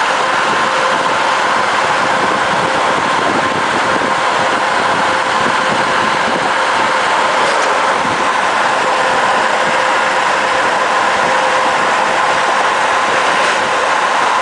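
Car driving steadily across a road bridge: even tyre and engine noise with a constant hum.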